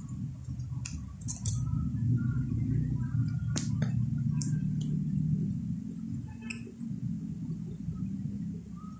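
A few light clinks and taps of small hard objects, about seven scattered sharp clicks, over a steady low background hum.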